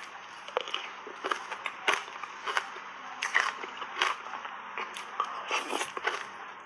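Close-miked crunching and chewing of a mouthful of shaved ice coated in matcha powder: about ten sharp, irregular crunches, roughly one or two a second.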